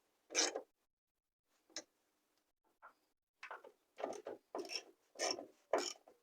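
Ratchet wrench tightening the door hinge bolts: a run of short ratcheting strokes, sparse at first and then coming about two a second from halfway on.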